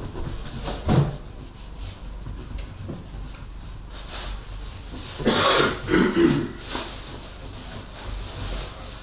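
A man coughing: one cough about a second in, then a short run of several coughs about five seconds in.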